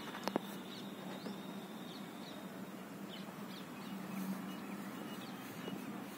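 Outdoor ambience: scattered short bird chirps over a steady low hum, with two sharp clicks about a third of a second in.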